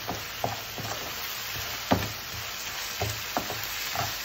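Chilli paneer sizzling in a frying pan as it is stirred with a wooden spatula, with scattered knocks of the spatula against the pan; the loudest knock comes about two seconds in.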